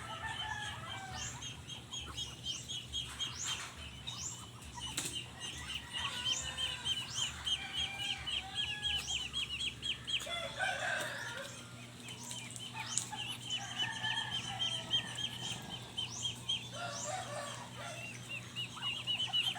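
Chickens clucking at feeding time, over a fast, even run of short high chirps.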